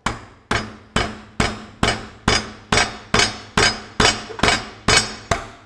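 Steady hammer blows on a punch held against the edge of the king pin bush in a Ferguson tractor's front axle housing: about thirteen evenly spaced metal strikes, roughly two a second, each ringing briefly. The blows collapse the bush inward at its split, loosening it so that it can be removed.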